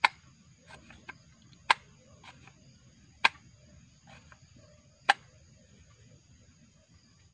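Homemade PVC gas-gun exhaust valve being worked by hand: four sharp clicks about one and a half to two seconds apart, with faint handling ticks between them.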